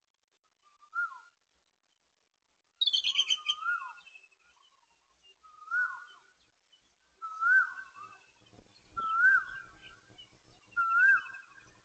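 Bird calling outdoors: a clear whistled note that rises and falls, repeated about every two seconds and growing louder. A brief, sharper, higher call comes about three seconds in, and there is a faint trill.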